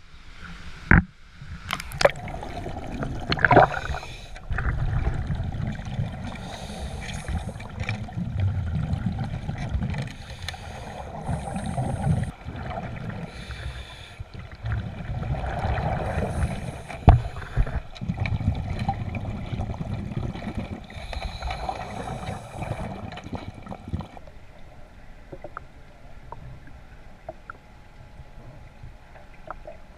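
Muffled water sloshing and gurgling heard through a camera submerged in the river, swelling and fading in waves, with a few sharp knocks of the housing near the start and once about 17 seconds in. It turns quieter after about 24 seconds, leaving small clicks.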